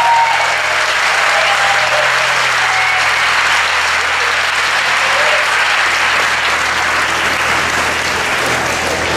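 Audience applauding steadily, after the song's last held note ends just as the applause begins.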